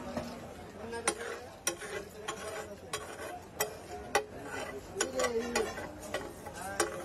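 Metal spatula scraping and clacking against a large flat griddle (tawa) as pav bhaji is spread and mashed across it, with sharp clacks every half second to a second.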